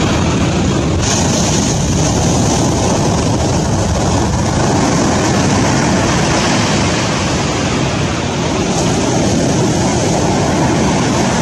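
Steady rushing noise of surf, even and unbroken with no rhythm or tones.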